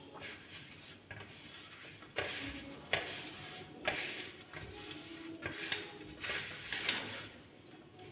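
A hand kneading a sticky petha-and-coconut sweet mixture around a steel plate: soft scraping and pressing, with several short knocks and clinks against the metal plate.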